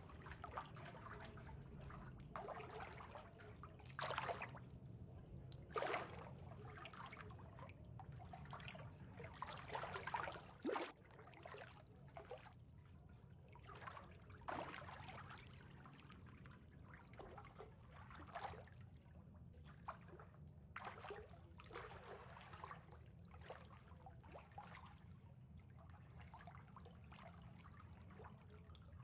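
Faint water trickling and lapping in irregular small splashes, a few of them louder in the first third, over a low steady hum.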